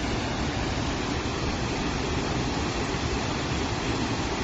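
Floodwater rushing out of a burst dam in a great jet of spray: a steady, even rushing noise.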